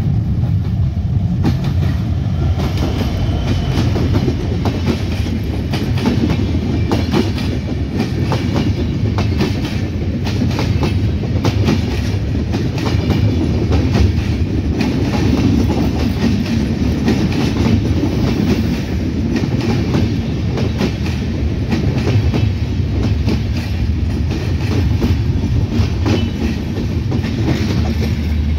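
Bangladesh Railway intercity passenger coaches passing close by in a steady loud rumble, their wheels clattering rapidly and repeatedly over the rail joints.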